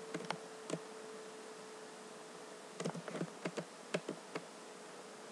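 Computer mouse and keyboard clicks: a few in the first second, then a quick run of about eight in the middle. A faint, steady hum runs underneath.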